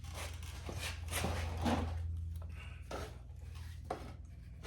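Irregular knocks, clinks and scraping of metal motorcycle parts being worked by hand and lined up into place. The densest knocks come about 1 to 2 seconds in.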